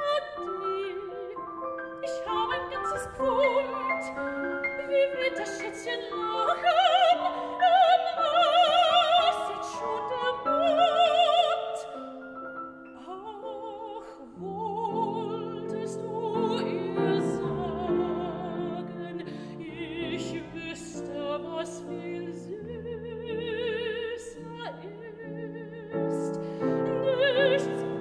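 Soprano singing a German art song with wide vibrato, accompanied by grand piano. The voice is loudest in the first half; after a short dip the piano carries low chords while the voice comes in and out above it.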